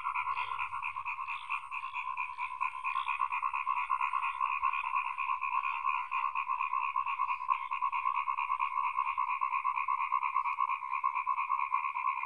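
Dense chorus of many frogs calling together, a continuous fast pulsing at two pitches, one middle and one higher.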